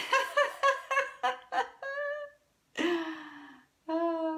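A woman laughing in a quick run of laughs, then a breathy sigh and a short hum.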